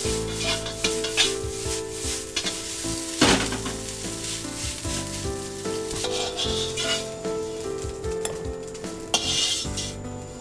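A metal spatula scrapes and stirs rice in a wok while the rice sizzles, with one loud knock of the spatula about three seconds in. In the second half the spatula scrapes the rice out of the wok into a bowl. Background music with held notes plays underneath.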